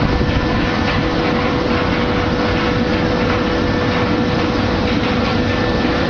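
Dates washing and air-drying machine running: steady noise of its axial drying fan blowing over the mesh conveyor, with a steady mid-pitched hum.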